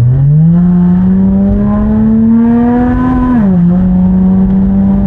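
Big-turbo BMW M140i's turbocharged straight-six heard from inside the cabin, its revs rising steadily as it pulls in gear. About three and a half seconds in the pitch drops quickly at a gear change, and the engine then runs at a steady note.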